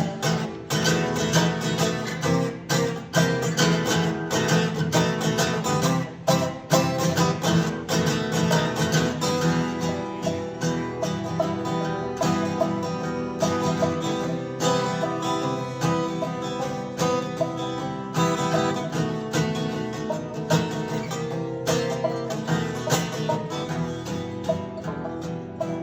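Live acoustic string music in a bluegrass-country style: fast, busy picking on guitar and other plucked strings, an instrumental passage without singing.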